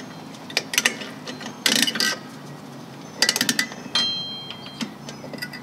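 Metallic clicks and rattles of a drum-brake hold-down spring and its retainer cup being pressed in and given a quarter turn with a hold-down spring tool, in three short clusters, with a brief metallic ring about four seconds in.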